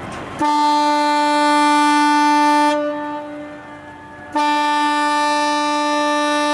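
Fishing vessel's horn sounding two long, steady blasts, each a little over two seconds, the second starting about four seconds in.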